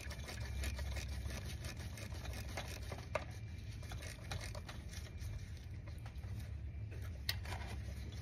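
Faint scraping, rubbing and small clicks of a gloved hand working among hoses and wiring in a car's engine bay, with a sharper click about three seconds in and again near the end, over a steady low hum.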